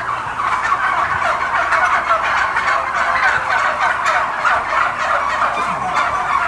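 A large flock of domestic turkeys gobbling and calling all at once, a continuous chorus of many short, overlapping calls.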